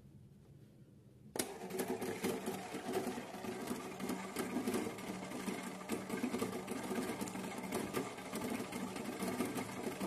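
Piko Mandy toy washing machine switched on: its small motor starts suddenly a little over a second in and then runs steadily, turning the drum of water and laundry with a busy rattle of small clicks.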